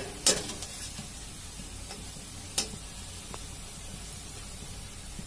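Besan pakoras deep-frying in hot oil in a metal kadhai, sizzling steadily. A slotted spatula clinks against the pan twice: once shortly after the start and again about two and a half seconds in.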